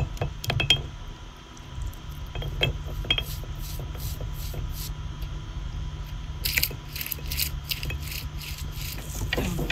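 Stone roller grinding spice paste on a flat stone grinding slab: a scraping roll of stone on stone with irregular clicks and knocks, which come faster later on.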